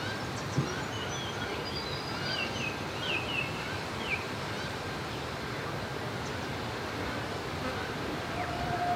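Birds chirping: a run of short, quick calls that slide in pitch, mostly in the first half, over a steady outdoor background hiss. A steady hum starts near the end.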